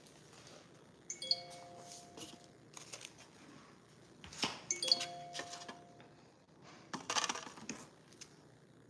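An electronic two-tone chime, like a doorbell, sounds twice about three and a half seconds apart. Between and after the chimes come a few short knocks and a brief rustle of handling on the countertop.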